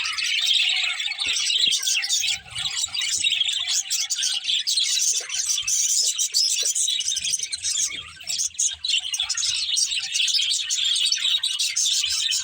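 Budgerigars chirping and chattering without a break, a dense high-pitched warble.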